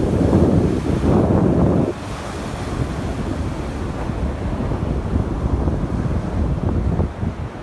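Wind buffeting the microphone over the wash of ocean surf, with a strong gust in the first two seconds that then drops to a steadier low rumble.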